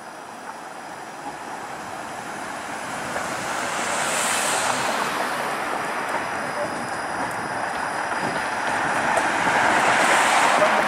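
Flexity Outlook streetcar rolling slowly past on its track, a steady noise of wheels on rail that grows louder. A car drives by close near the end.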